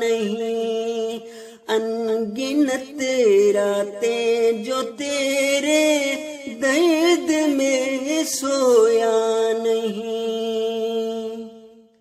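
Solo male voice singing a devotional Urdu kalam unaccompanied, drawing out long held notes with ornamented turns in pitch. The voice fades out near the end.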